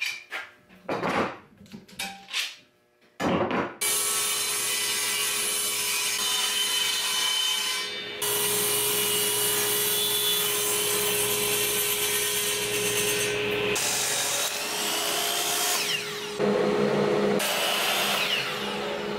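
A few knocks and clicks of bar clamps being worked. From about four seconds in come long runs of power-saw cutting through plywood: a table saw ripping, then a miter saw, each a steady loud running noise with a hum held under it.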